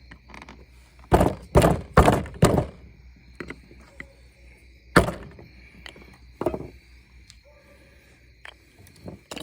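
Hard knocks or thunks: four in quick succession about a second in, then two more single ones a few seconds later, with a few fainter clicks between them.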